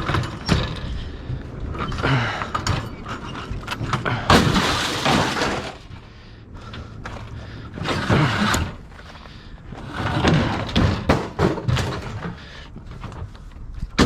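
Scrap metal and junk clattering and crashing in about five separate bursts as pieces are handled and thrown onto a load.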